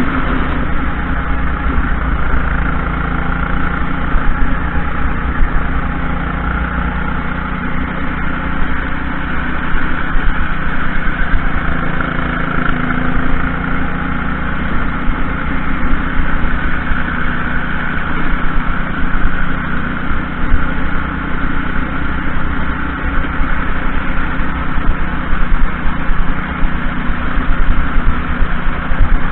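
Junior racing kart's engine running hard through a lap, heard from a camera mounted on the kart; a steady, loud drone whose pitch wavers up and down slightly.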